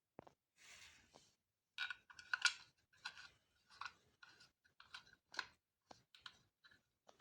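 Irregular small clicks and taps of hand tools, screws and plastic parts being handled while the scooter's rear fender assembly is worked on, a dozen or more short knocks at uneven spacing.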